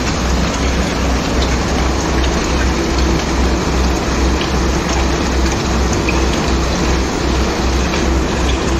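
A BLC4000 wheeled concrete placing machine running at the work site: its engine and pump give a steady low pulsing drone with a constant hum, under an even hiss.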